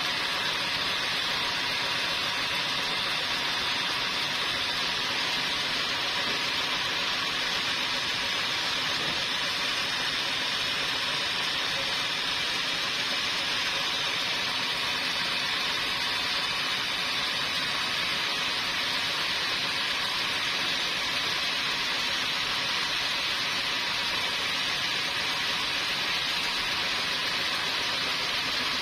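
Sawmill machinery running: a steady, even hiss with a faint hum beneath, unchanging throughout.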